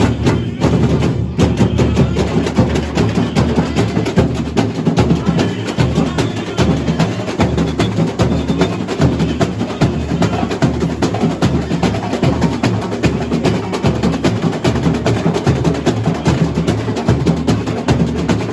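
Samba school bateria playing samba at full volume: deep surdo bass drums under snare drums and small percussion in a dense, steady beat.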